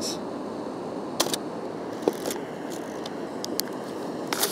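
Mamiya RZ67 Pro II medium-format camera being fired and handled: a pair of sharp mechanical clicks about a second in, then a few more scattered clicks, over a steady background hiss.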